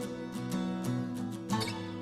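Background music: sustained pitched chords over a steady, regular beat.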